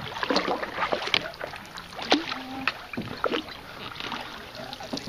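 Canoe paddle dipping and pulling through still creek water, with irregular splashes and drips.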